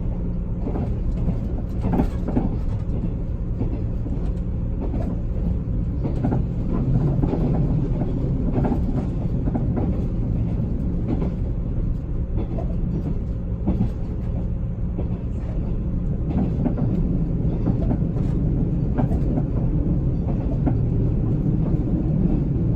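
Running gear under a limited express Yakumo passenger car, heard from inside the cabin: a steady low rumble with frequent irregular knocks and rattles, an abnormal wheel-area noise that the conductor puts down to the train being old.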